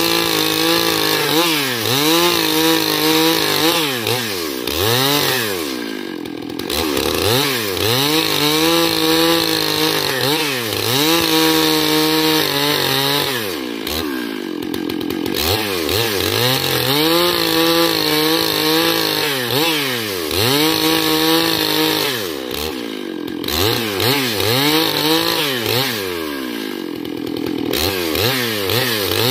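Stihl MS 661 two-stroke chainsaw running at full throttle while ripping a log lengthwise into boards, its engine pitch sagging and rising again every couple of seconds as the chain loads up in the cut.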